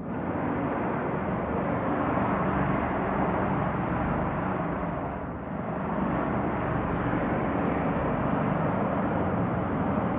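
Loud, unexplained trumpet-like noise from the night sky: a dense droning blare that comes in two long swells, dipping briefly about five seconds in before building again.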